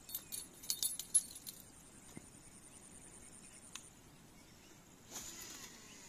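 Light metallic jingling and clicking for about a second and a half, then a short rustle near the end, over a faint steady high-pitched tone.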